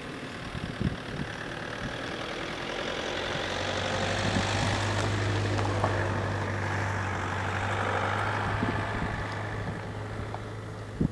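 An engine running with a steady low hum, its noise swelling and then fading over several seconds. Gusts of wind buffet the microphone at the start and end.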